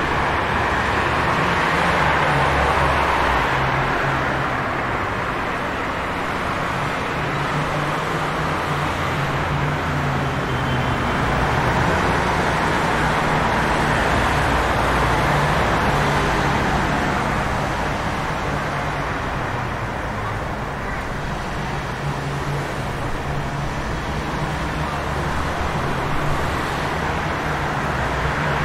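Steady rumble and hiss of city street traffic, swelling and easing slowly as vehicles pass, over a low hum.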